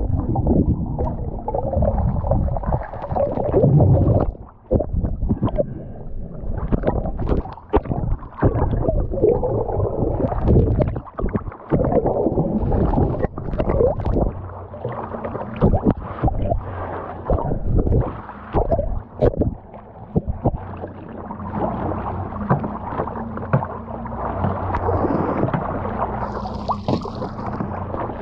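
Water sloshing and gurgling around a camera held at the ocean surface, muffled as it dips under, broken by irregular knocks and splashes.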